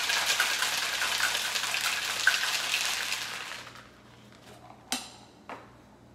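Ice cubes rattling inside a stainless steel cobbler cocktail shaker shaken hard for about three and a half seconds, then stopping. Two sharp metal clinks from the shaker's cap follow about a second later.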